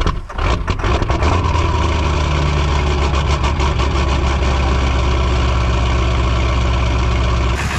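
Ford 7.3 Powerstroke V8 diesel catching on an ether-assisted cold start. It fires unevenly with sharp knocks for the first second or so, then settles into a steady idle, heard at the tailpipe.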